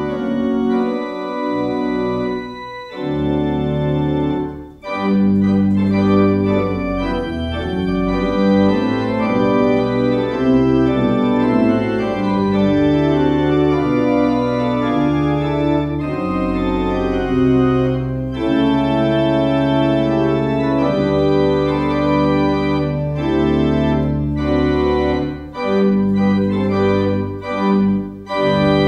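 Organ playing slow, sustained chords that change about once a second, in phrases with short breaks between them.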